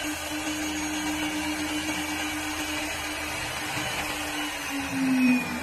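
CNC wood lathe running: a steady motor hum over a rushing noise. Near the end the hum dips slightly in pitch and briefly gets louder.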